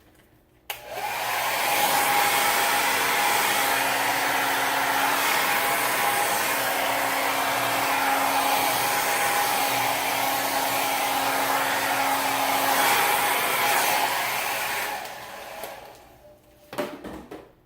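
Hand-held hair dryer switched on just under a second in, running steadily with a rush of air and a faint steady whine, then switched off and winding down near the end.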